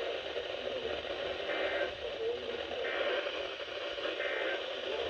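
Radio receiver static and hiss from an emergency weather-alert broadcast, with a faint, garbled voice wavering under the noise.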